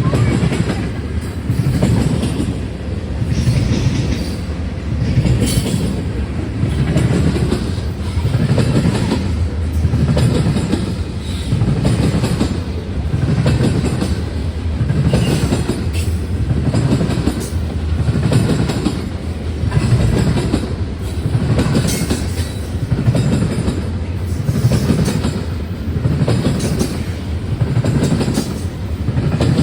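CN freight train's cars rolling past, the wheels clattering over rail joints in a steady rhythm about once a second.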